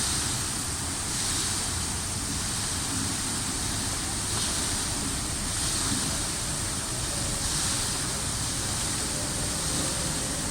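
Fountain water splashing steadily, a continuous rushing hiss with gentle swells every second or two.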